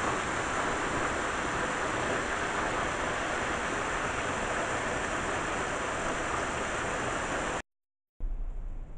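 A steady rushing hiss with no pattern or pitch. It cuts off abruptly about seven and a half seconds in, and after a half-second gap of dead silence a much quieter background follows.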